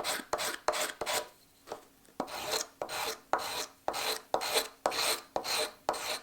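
Hand filing in quick back-and-forth scraping strokes, about three a second, with a short pause after the first second. The strokes stop abruptly at the end.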